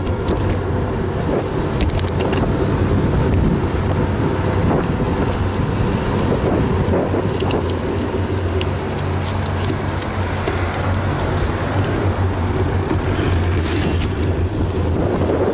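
Steady low rumble of wind buffeting the camera microphone together with tyre noise from a bicycle rolling along a cycle path, with car traffic on the road alongside.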